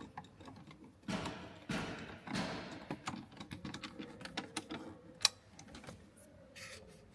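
Small screws and plastic glove-box trim being handled: rustling and scraping with scattered light clicks, and one sharper click about five seconds in.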